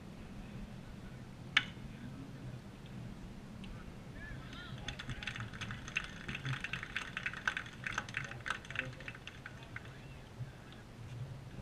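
A single sharp crack from the play at home plate about one and a half seconds in. From about four and a half to nine seconds, scattered clapping and shouts come from players and spectators at the baseball field, over a steady low hum.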